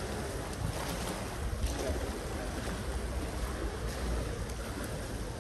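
Wind buffeting the microphone with a steady low rumble, over water lapping and splashing in the pool.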